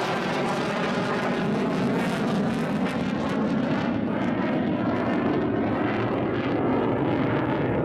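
Twin turbofan engines of an F-15J fighter jet give a loud, steady jet noise as the aircraft flies past and climbs away. The high hiss thins out over the last few seconds.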